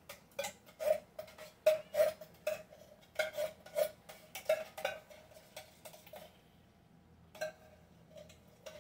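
Hand-crank can opener being turned around the rim of a metal can: an even run of clicks, about two to three a second, each with a short metallic ring. The cranking pauses about six seconds in and starts again near the end.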